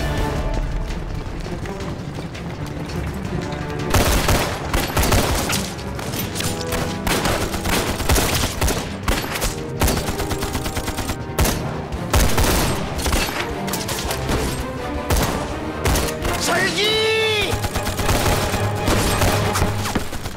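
Film battle soundtrack: a fusillade of rifle and machine-gun fire, shots coming in rapid irregular volleys from about four seconds in, over background music.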